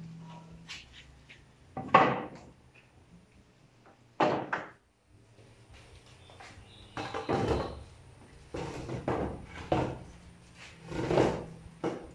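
Wooden pallet planks being handled on a wooden sawhorse: a series of separate, irregular wooden knocks and thunks, one every second or two.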